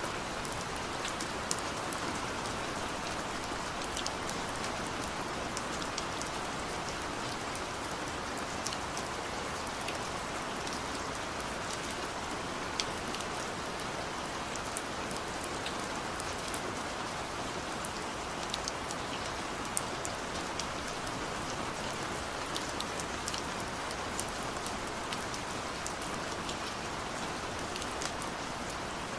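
Steady rain falling, with a constant hiss and many separate drops ticking sharply on a hard surface.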